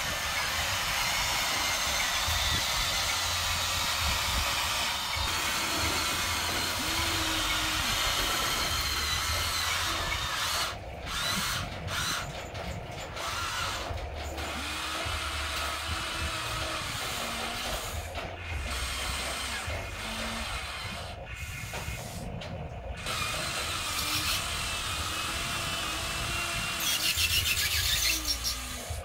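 Electric motors and gearboxes of a Huina remote-control toy excavator whirring as its arm works, stopping and starting several times with the pitch rising and falling. A louder rattling whir comes near the end.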